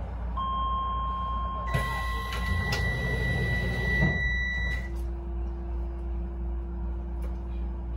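Docklands Light Railway train's door-closing warning: steady electronic beep tones at two pitches, with a few knocks and a thud as the doors shut about four seconds in. A low steady hum follows, over the train's constant low rumble.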